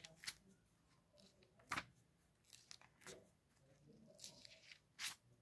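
Thin Bible pages being turned by hand: several quick, faint paper rustles and flips as the pages are leafed through.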